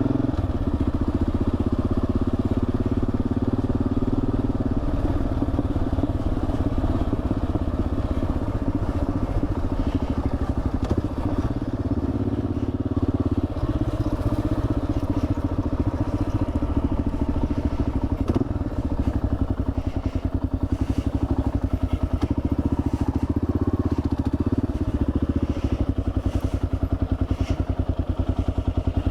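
Kawasaki KLR650's single-cylinder four-stroke engine running steadily as the motorcycle is ridden along a track, with scattered light ticks in the second half.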